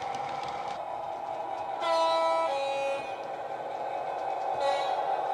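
Model Class 66 diesel sound from a Howes DCC sound decoder, played through a 25x25x7 megabass speaker: the engine runs steadily. About two seconds in comes a two-tone horn, a high note then a lower one, and near the end a short horn toot.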